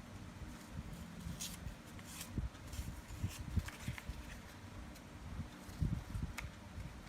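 Sheet of paper being handled and folded by hand: irregular soft knocks and thumps against the work surface, with a few short crisp crackles of the paper.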